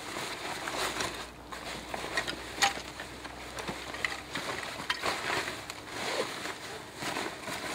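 Kifaru Long Hunter backpack being handled: its fabric rustles and its straps and buckles scrape, with scattered small clicks.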